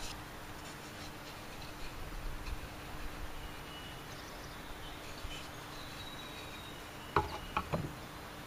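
Faint, steady high insect chirring in the background; about seven seconds in, a few quick knocks as a scrap of wood is set and pressed against the miter saw's base.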